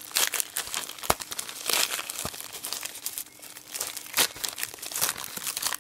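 Plastic shipping mailer bag crinkling and tearing as hands pull its sealed end open, an irregular run of crackles with a few sharp snaps.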